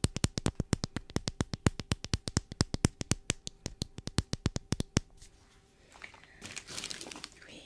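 Rapid, even tapping on a small plastic candy bottle held close to the microphone, about seven taps a second, stopping about five seconds in. Near the end comes a soft rustling as packaging is handled.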